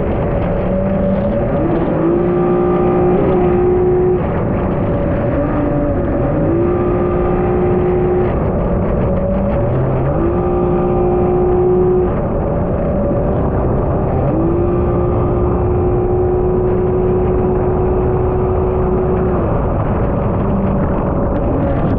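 Yamaha Superjet stand-up jet ski's three-cylinder engine under throttle while riding, its pitch climbing, holding for a few seconds, then dropping back, about five times over.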